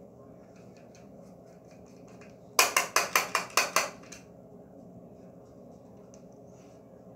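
A quick run of about seven sharp, loud taps, a hard object knocked against a hard surface a few times a second for about a second and a half, a little over two seconds in. Light clicks and rustles of small objects being handled come before and after.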